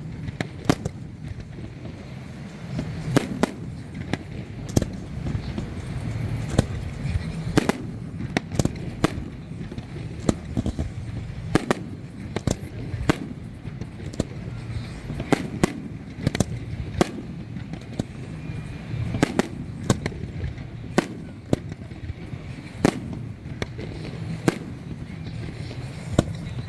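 Fireworks display going off: sharp bangs at irregular intervals, roughly one a second, over a steady low rumble.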